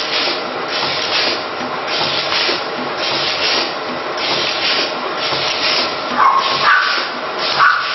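A hand rubbing back and forth across a sheet on the bed of a mosaic glass press: a scratchy swish repeated about once or twice a second. A few short high squeals come near the end.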